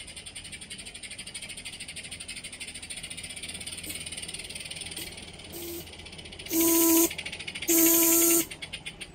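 Butane-fired live-steam Accucraft Emma Forney, a garden-scale narrow-gauge locomotive, chuffing in a fast steady beat that grows louder as it approaches. Its Weltyk steam whistle gives a short toot about five and a half seconds in, then two loud long blasts near the end.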